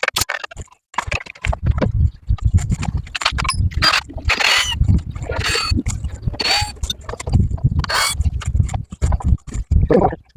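Wooden chair being handled and worked on: a string of knocks, clicks and scrapes, with a few short squeaks around the middle.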